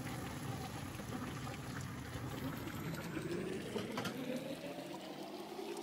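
Boiled water poured from a kettle into a stockpot of sautéed beef innards, splashing into the liquid as the broth is added. The pour stops partway through, leaving the pot's contents bubbling.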